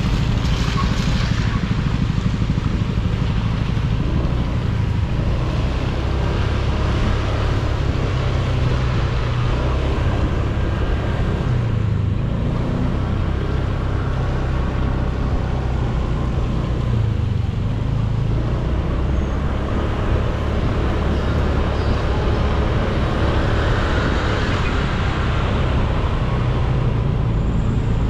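Honda Click 125i scooter's single-cylinder engine running steadily at low speed in slow traffic, with road noise from the wet pavement.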